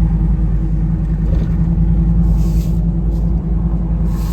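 Pickup truck driving along a road: a steady low engine and road drone, with two short hisses, one about two seconds in and one near the end.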